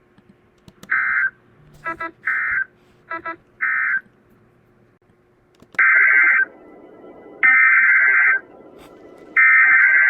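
Emergency Alert System SAME data bursts, buzzing digital screeches sent in threes. First three short bursts with brief beeps between them, the end-of-message code closing the blizzard warning. Then, from about six seconds in, three longer bursts over a low hiss, the header of the next alert.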